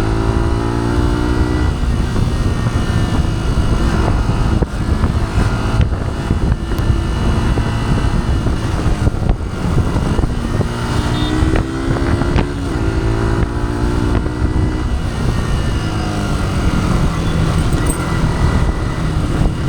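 A 2011 first-generation Yamaha YZF-R15's stock 150 cc single-cylinder engine running under load. Its pitch climbs in runs as it accelerates, about a second in and again midway, then drops back near the end.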